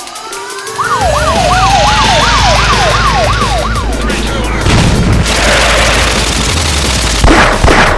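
Police siren effects: a fast yelp going up and down about three times a second over a second siren slowly winding up, above a loud low rumble. The sirens fade by the middle, and a few sharp bangs come near the end.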